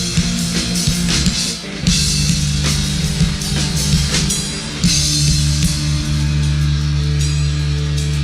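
Rock band playing an instrumental passage on drum kit and electric guitar, with drum hits driving the first half. From about five seconds in, a low guitar chord is held and rings on.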